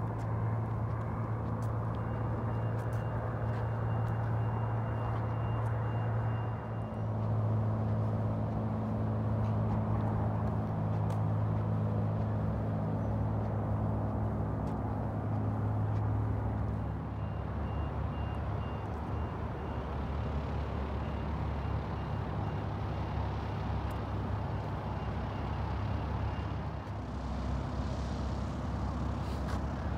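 A large vehicle's engine running steadily with a low hum, its note shifting a little about a quarter and half way through, with a faint high-pitched beeping at times.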